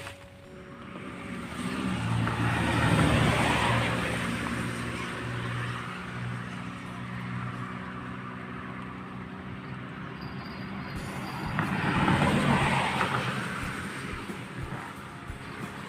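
Two road vehicles passing by, one after the other: each swells up and fades away, the first about three seconds in and the second about twelve seconds in.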